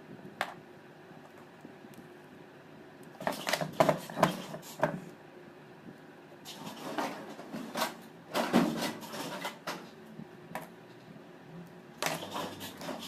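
Handling noise from a metal alternator rotor being gripped, turned and set down on a wooden workbench: irregular knocks, clatters and scrapes in three bunches, the loudest a few seconds in and past the middle.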